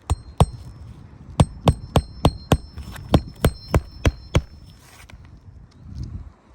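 Hand hammer driving roofing nails through an asphalt shingle: about a dozen sharp, ringing strikes, two at first and then a quick run of about three a second after a short pause.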